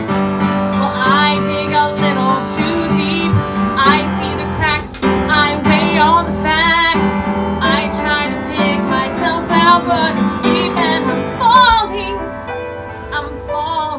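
A woman singing a show tune with wide vibrato on held notes, accompanied by upright piano; the music quietens near the end.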